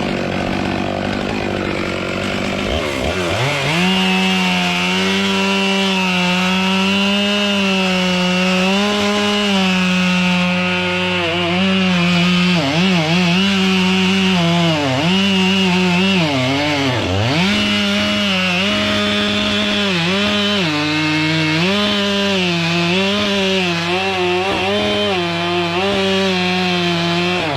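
Two-stroke chainsaw at full throttle cutting into wood; its high engine note rises about three seconds in, then sags briefly again and again as the chain bites under load and recovers.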